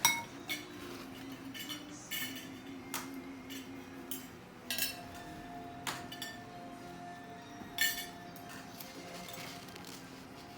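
Cutlery clinking against a plate while eating: about seven sharp clinks at uneven intervals, the loudest right at the start.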